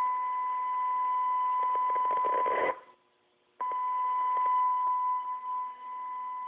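Steady test tone of the kind a service monitor modulates onto its signal, heard from a Motorola MCS2000 800 MHz two-way radio receiving that signal during a receive test. About two seconds in, hiss builds under the tone. The sound then cuts out for about a second, and the tone comes back.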